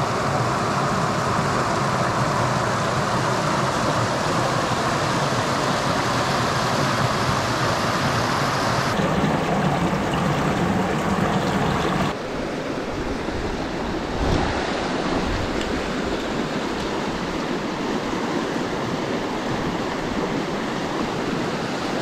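Mountain creek water rushing in a steady, loud wash. The sound shifts about nine seconds in and drops slightly about twelve seconds in.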